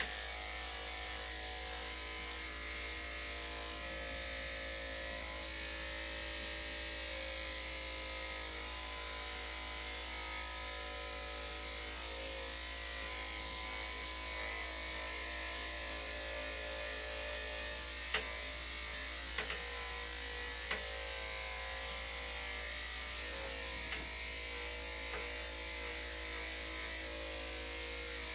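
Electric dog-grooming clippers running with a steady hum, with a few light clicks partway through.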